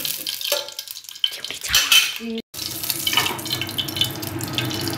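Metal utensils clinking and clattering against the wok in the first couple of seconds, then, after a brief break, ghee melting and sizzling steadily in the hot wok.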